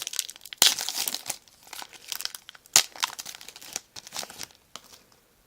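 A trading card pack's wrapper being torn open and crinkled by hand, in irregular bursts with two sharper rips, one about a second in and one near three seconds, then dying away.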